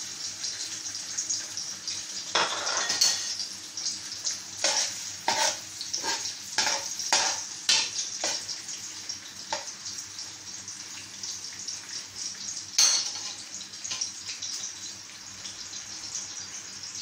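Sliced onion and garlic sizzling in hot oil in a large metal pot, stirred with a metal spoon. The spoon knocks against the pot in a quick run, about twice a second, through the first half, with one sharp clink later on.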